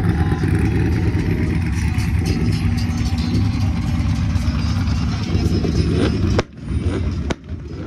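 A vehicle engine running with a loud, low rumble that drops away abruptly about six and a half seconds in, followed by a few sharp clicks.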